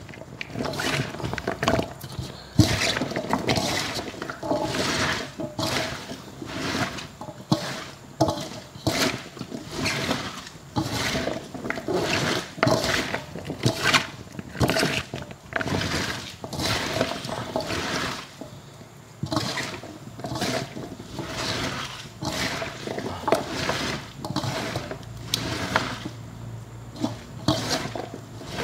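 Hands kneading and tossing salted, sliced fresh bamboo shoots in a stainless steel bowl, working the salt in for fermenting: wet crunching and rustling of the pieces in irregular strokes, one or two a second.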